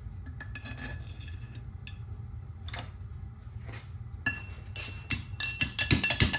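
Metal-on-metal clinks and taps with a short ringing note, as steel steering-head bearing parts are worked onto the bottom yoke's stem sleeve. The taps are scattered at first, then come faster and louder over the last two seconds.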